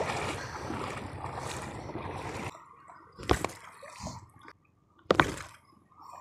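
Shallow water sloshing and lapping at the shore as a steady wash of noise, which falls away suddenly about two and a half seconds in. Two sharp knocks follow, about two seconds apart.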